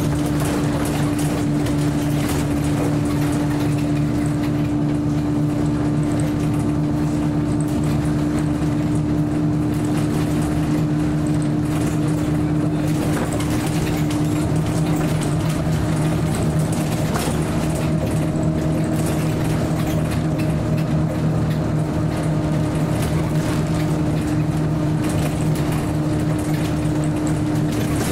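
Scania L94UB city bus running at a steady engine speed, heard from inside the passenger cabin: an even, unchanging hum over a noisy background.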